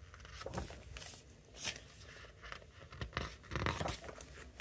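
Glossy photobook pages being turned and pressed flat by hand: a few soft paper rustles, the longest and loudest about three and a half seconds in.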